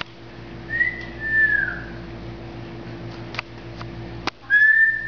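Double yellow-headed amazon parrot whistling. A faint whistle about a second in holds its pitch and then falls away; a louder, longer one near the end does the same. A few faint clicks come between them.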